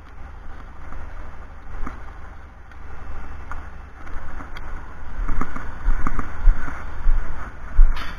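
Wind buffeting the microphone in gusts, stronger in the second half, with a few light knocks and a sharp click, typical of tools and bracket parts being handled.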